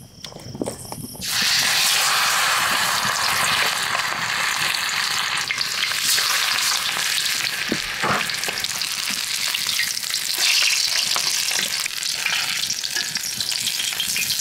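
Beer-battered frog legs dropped into hot canola oil in a cast-iron skillet: the oil bursts into a loud sizzle a little over a second in and keeps frying steadily. A few clicks of metal tongs sound in the pan, and crickets chirp before the oil takes over.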